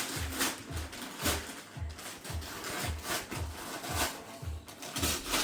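Gift wrapping paper rustling and tearing in irregular crackles as a present is unwrapped, over a low, steady beat of background music.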